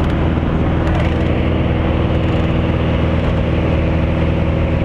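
A light aircraft's engine and propeller in flight, making a steady drone.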